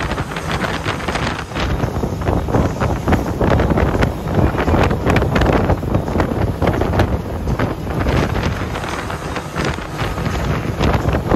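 Wind rushing and buffeting hard on the microphone aboard a center-console boat running fast over open water, with the boat's running noise beneath it.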